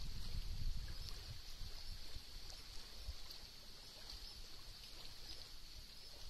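Lake water lapping gently against reeds, with a low rumble that dies down over the first few seconds and a faint steady high hiss.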